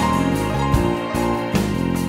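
Background music with piano.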